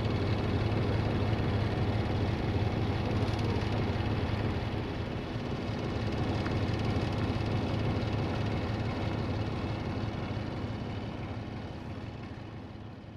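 Sulzer 12LDA28 diesel engine of a CFR 060-DA (LDE2100) locomotive running steadily with a deep hum, fading out near the end.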